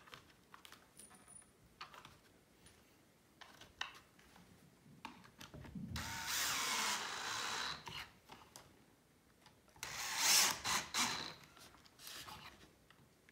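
Power drill driving screws into the pocket holes of a flat-pack bench: two main runs of about two seconds each, the second louder, with a short third burst just after and light handling clicks before.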